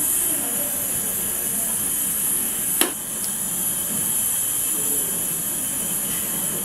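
Steady high hiss over the noodle pot on its gas burner, with one sharp clink of the metal spoon against the pot about three seconds in.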